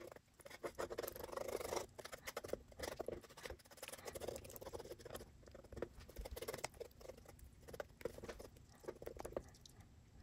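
Wooden stir stick scraping and tapping across wet epoxy and the wooden blocks in the form as it pushes the epoxy into the side channels: a faint, irregular patter of small scrapes and clicks that stops near the end.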